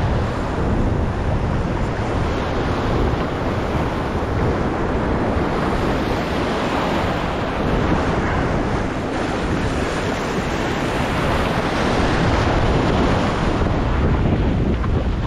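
Sea surf breaking and washing through the shallows, with wind buffeting the microphone.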